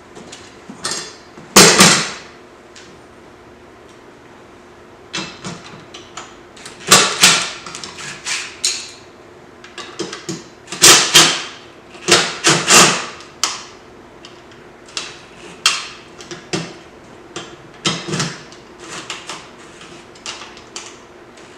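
Hand tools clanking and clinking against a steel seat bracket while its bolts are worked loose: irregular metal knocks and rattles, in a few louder clusters.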